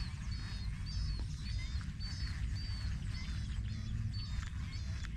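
Wildlife chirping in a flooded field: a run of short, high-pitched calls repeating about two to three times a second, over a steady low rumble of wind on the microphone.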